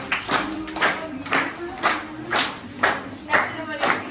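Rhythmic hand clapping, about two claps a second, keeping time with voices singing.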